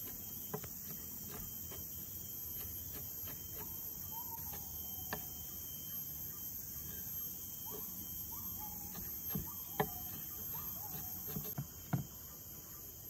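Chef's knife chopping mushrooms on a wooden cutting board: a few irregular knocks of the blade against the board, louder near the end. Underneath is a steady high drone of crickets and other insects, with short bird chirps.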